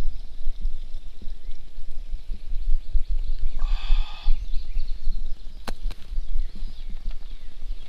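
Wind rumbling and buffeting on the microphone in uneven gusts. About four seconds in comes a brief harsh buzzing sound, and a little before six seconds a sharp click, followed by a fainter one.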